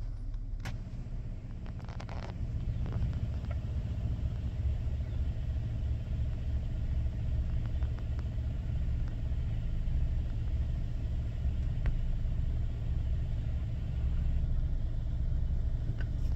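Car engine running, a low steady rumble heard from inside the cabin, with a few light clicks in the first couple of seconds.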